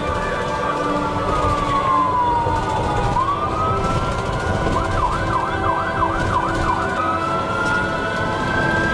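Ambulance siren in a slow wail, falling and then rising in pitch. About five seconds in it switches to a rapid yelp of roughly three sweeps a second for two seconds, then returns to the slow wail. Heard from inside the moving ambulance, with the vehicle's road rumble underneath.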